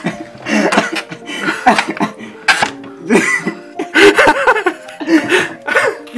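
People laughing in repeated bursts, with background music playing underneath.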